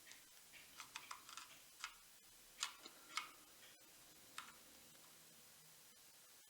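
Faint, irregular small plastic clicks and taps as the battery cover of a smart body tape measure is twisted to seat it in its grooves; the clicks stop about four and a half seconds in.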